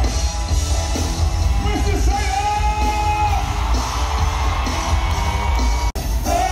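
Live band playing on stage, with a singer holding a long note over a heavy bass line. The sound drops out briefly near the end.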